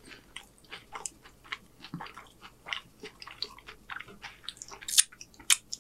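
A person chewing a mouthful of loaded nachos close to the microphone: irregular crisp crunches of tortilla chips, several a second, with the loudest crunch about five seconds in.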